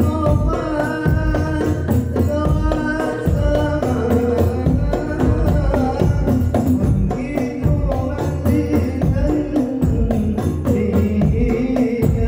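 Hadrah percussion ensemble playing a steady devotional rhythm on hand-struck frame drums and a bass drum, with a melody line carried above the drumming.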